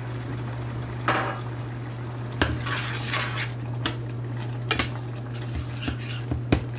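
Metal spoon stirring a thick vegetable curry in a stainless steel sauté pan, knocking and scraping against the pan about half a dozen times over a steady low hum.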